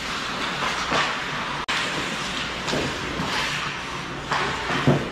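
Ice hockey skates scraping and carving the ice in repeated swells, with sticks clacking in play around the net. A sharp knock near the end.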